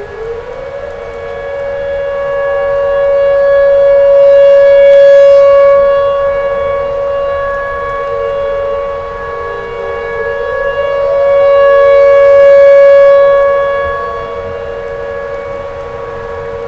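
Outdoor tornado warning siren wailing on two steady tones sounded together. Its pitch slides up near the start and again about ten seconds in, and its loudness swells and fades twice.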